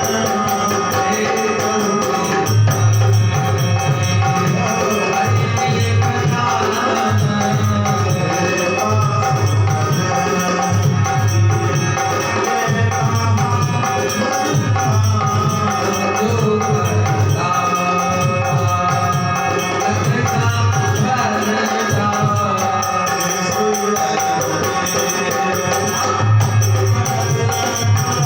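Dholak playing a steady rhythm with its deep bass strokes and crisp 'tanak' strokes, with jingling percussion and a melodic accompaniment over it.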